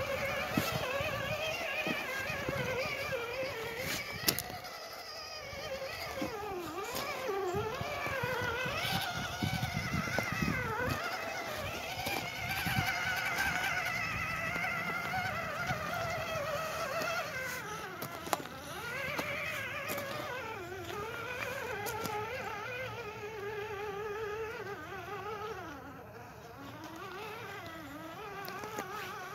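RC rock crawler's electric motor and gearbox whining, the pitch rising and dipping as the throttle is worked on a slow climb, with a few sharp knocks.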